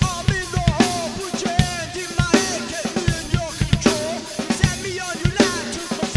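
Rock instrumental break: a drum kit keeps a steady beat with kick and snare, under a lead electric guitar playing bending, wavering notes.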